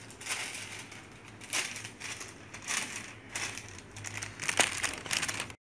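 A thin printed carry bag crinkling and rustling in uneven handfuls as it is handled and folded. The sound cuts off suddenly near the end.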